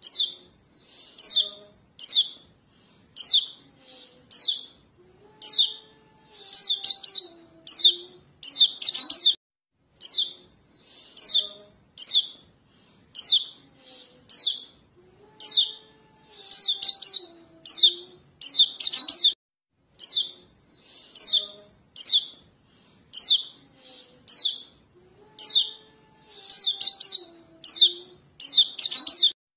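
Juvenile white-eyes (kecial kuning) calling their parents: short, high chirps, about one or two a second with tighter clusters among them. The same sequence repeats about every ten seconds, as a looped lure recording does.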